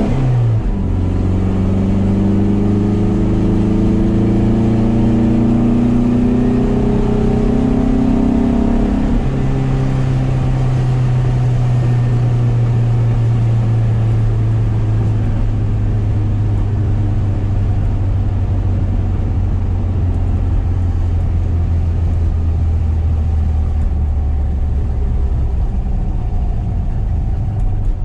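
A 1973 VW SP2's air-cooled flat-four, with dual 40 carburettors and a stainless exhaust, heard from inside the cabin. It upshifts right at the start and pulls up through the gear for about nine seconds. A second upshift follows, then it cruises at steady revs that ease off slowly.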